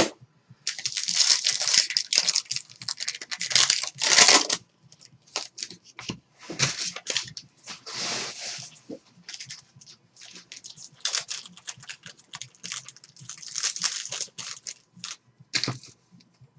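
Trading-card packaging being torn open and crumpled by hand: foil and plastic wrappers rustling and tearing in three long stretches.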